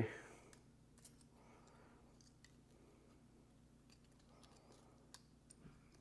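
Faint clicks and scrapes of a screwdriver tip working a sticker off a new EBC brake pad's metal backing plate.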